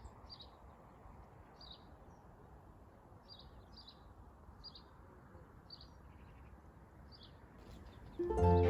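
A small bird chirping, short high notes repeated about once a second over faint outdoor background noise. Music starts loudly near the end.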